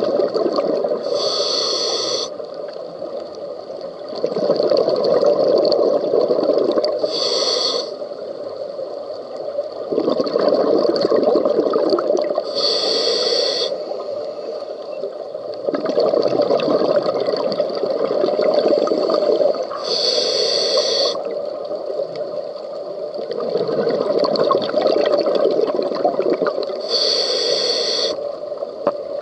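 Scuba diver breathing through a regulator. A short hiss of inhaled air comes about every six to seven seconds, five in all, with longer stretches of exhaled bubbles streaming out between them.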